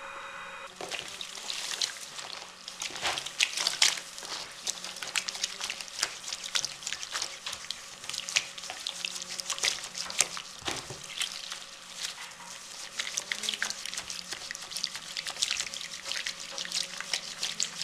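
Hands kneading and pressing wet felt in a basin of soapy water: an irregular run of wet splashes, squelches and drips, starting about a second in.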